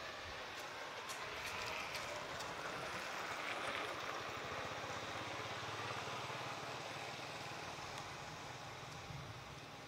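A vehicle engine running steadily, with a few light clicks in the first couple of seconds. It grows a little louder towards the middle and eases off near the end.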